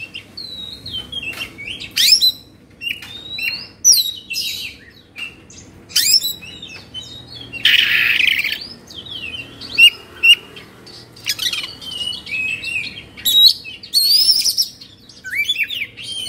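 Oriental magpie-robin (kacer) singing an agitated, rapid song of varied whistles, sweeping chirps and sharp notes, the 'kongslet' style that keepers call emotional. About eight seconds in comes a harsh rasping note lasting about a second.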